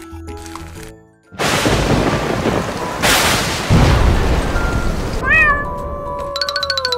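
A cartoon explosion sound effect: a loud burst of noise with a deep rumble lasting about three and a half seconds. Gliding meows like a cat's follow near the end, after a short snatch of music at the start.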